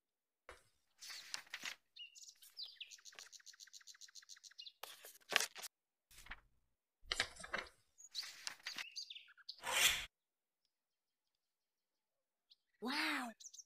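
Paper envelope being handled and opened: a string of separate paper rustles and tears, with a rapid run of evenly spaced ticks in the middle. Near the end a short tone rises and falls once.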